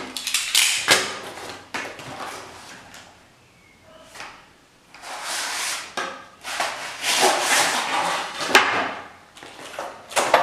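A long cardboard shipping box being opened by hand: cardboard flaps scraping, rustling and tearing in spells, with a few sharp knocks, and a quieter stretch a few seconds in.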